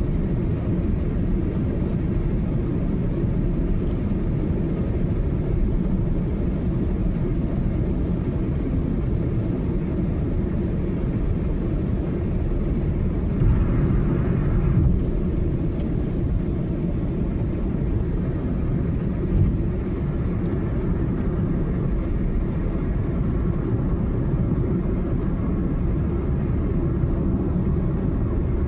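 Steady low rumble of a car being driven on the highway: engine and tyre noise. A brief hiss rises over it about halfway through.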